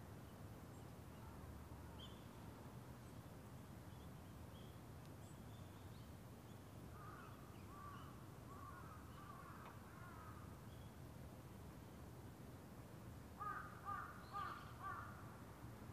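Crows cawing: a faint run of caws about seven seconds in, then four louder caws in quick succession near the end. A few faint small-bird chirps come earlier, over a low steady background hum.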